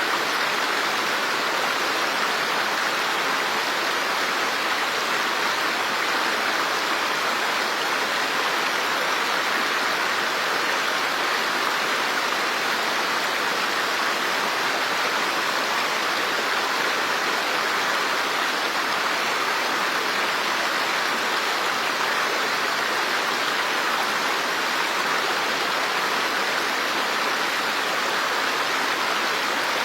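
Running water making a steady, even rush with no separate splashes or drops standing out.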